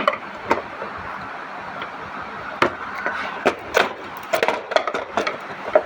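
Irregular knocks and clatter from handling washing machine parts and tools during disassembly. The knocks are sparse at first and come more often from about three and a half seconds in.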